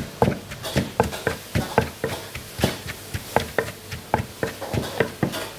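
Wooden pestle pounding shredded green papaya in a mortar, about three dull knocks a second at an uneven pace, with a spoon turning the mix. The cook is lightly bruising and mixing the papaya salad with its fish sauce and sugar dressing.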